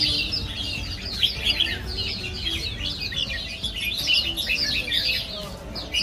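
Many caged songbirds chirping and twittering at once: a dense, overlapping chorus of quick high calls with no break, over a low background rumble.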